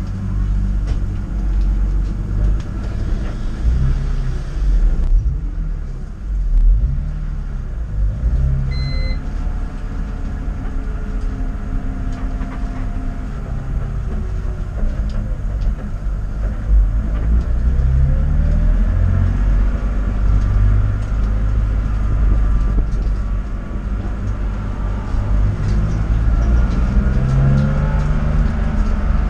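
Car engine at track speed, revving up and falling back again and again as it accelerates and slows, over a heavy low rumble. A short beep sounds about nine seconds in.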